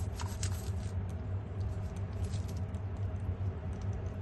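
A toothbrush scrubbing a crab's shell, scratchy scraping strokes of the bristles on the hard shell, thickest in the first half second, over a steady low hum.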